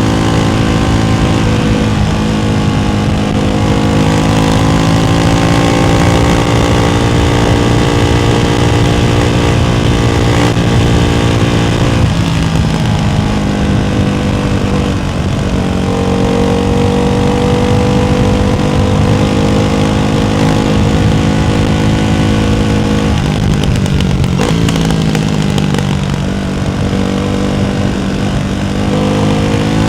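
Ducati Hypermotard 698's single-cylinder engine running through a Termignoni exhaust with the baffles fitted, holding steady mid revs. Its pitch dips briefly a few times, about twelve, fifteen and twenty-four seconds in, and climbs again near the end.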